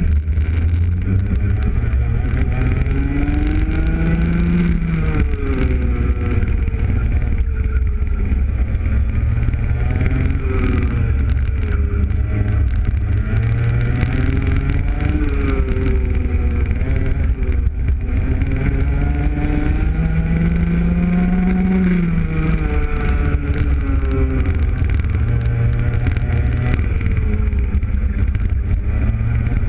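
Rotax Junior kart's 125cc two-stroke engine, heard close up on board, revving hard under full throttle, its pitch repeatedly climbing as it accelerates and dropping away as it lifts off, lap after lap.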